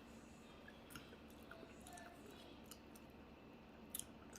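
Near silence with a few faint, soft clicks of chewing and mouth sounds while eating.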